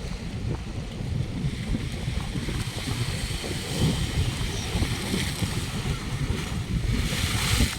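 Wind buffeting the microphone over the wash of sea waves, with a louder hiss swelling near the end.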